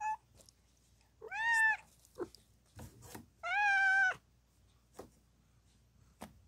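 Mother cat in labour meowing: a brief chirp at the start, then two long meows. The first rises and falls in pitch; the second, about half a second long, is steadier and the loudest. A few short, faint, lower calls come in between.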